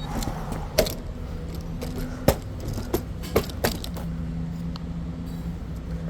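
A handful of sharp metallic clinks and knocks, five or so in the first four seconds, over a steady low hum.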